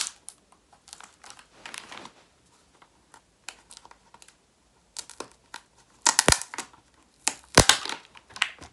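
Hand-handled packaging of a Surface Pro Type Cover rustling and crinkling as the box is worked open, with scattered small clicks and scrapes. There are two louder bursts of rustling near the end.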